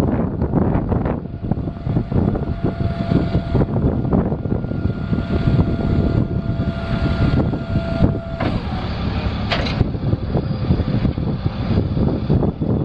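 Caterpillar 3126 six-cylinder diesel in a Freightliner FL60 box truck running steadily. A faint steady whine sits over it for several seconds and cuts off about eight seconds in.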